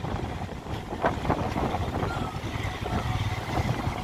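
Motorcycle engine running steadily at low revs under wind noise on the microphone.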